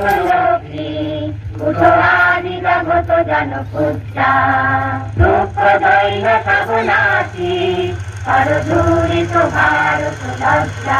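Group singing with music, played over the show's loudspeakers, with held notes that change about every second. A steady low hum runs underneath.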